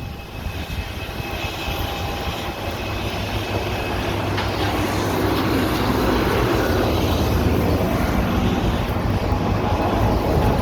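Siren test sounding in the distance as a droning wail, mixed with a low rumble, growing steadily louder.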